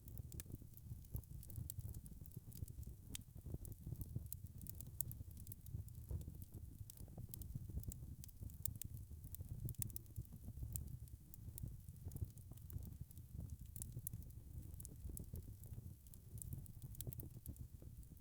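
Wood fire burning in a fireplace: a steady low rumble of flames with many small, quick crackles and pops scattered throughout.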